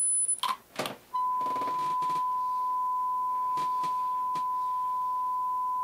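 A steady 10 kHz test tone from an audio oscillator cuts off just after the start, a few clicks of its range buttons follow, and about a second in a steady 1 kHz sine tone comes on and holds.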